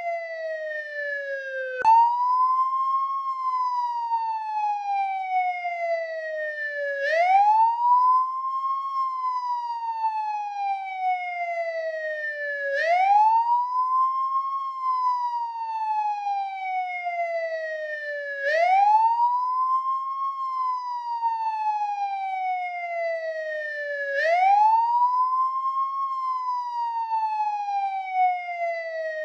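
American police car siren sounding the wail: one tone sweeps quickly up, then glides slowly down, over and over about every five to six seconds. A brief click comes about two seconds in.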